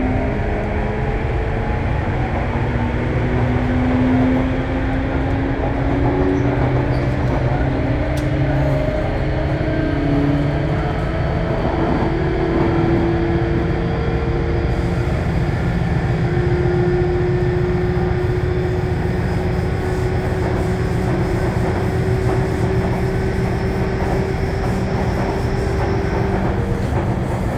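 Interior running sound of a Sotetsu New 7000 series electric train heard from above its GTO-VVVF inverter: steady wheel and rail rumble, with inverter and traction-motor tones that climb in pitch over the first few seconds and then hold nearly steady while the train runs at speed.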